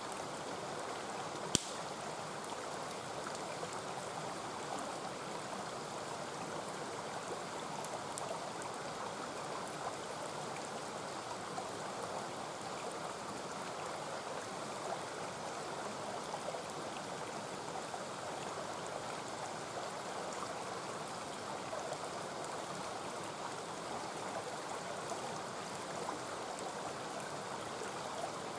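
Mountain stream rushing steadily, with one sharp pop from the wood campfire about a second and a half in and a few faint crackles.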